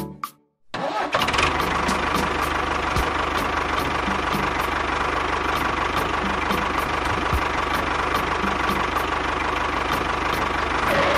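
Mini DIY tractor's engine sound running steadily, cutting in abruptly just under a second in and holding an even rumble.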